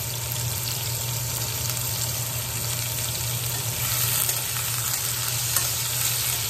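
Diced potatoes and pointed gourd sizzling as they fry in oil in a stainless steel wok, stirred with a metal spatula that now and then scrapes and clicks against the pan. A steady low hum runs underneath.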